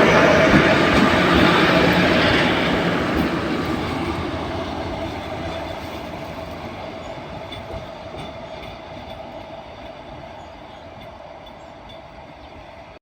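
Indian Railways goods train rolling past, its rumble and wheel clatter with a steady hum, fading steadily as it moves away.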